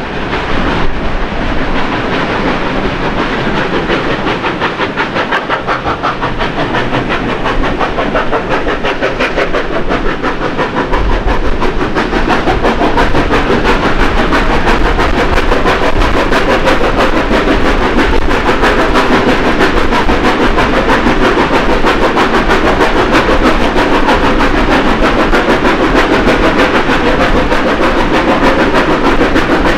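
Steam locomotives 3016 and 3642 working a train up the grade, heard from a carriage: a fast, even beat of exhaust over wheel and running noise. It grows louder about eleven seconds in as the train enters a tunnel.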